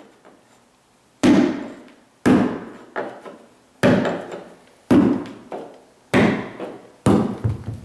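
White rubber mallet striking a tool set against the carpet edge at the baseboard: six heavy, dull blows roughly a second or so apart, some followed by a lighter tap.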